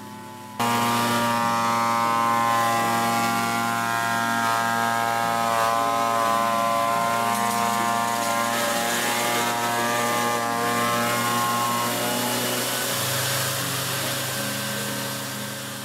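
Rig-mounted disc sander with a 120-grit disc running and sanding the end grain of clamped wood samples: a steady motor whine over gritty sanding noise. It starts abruptly about half a second in and eases off near the end.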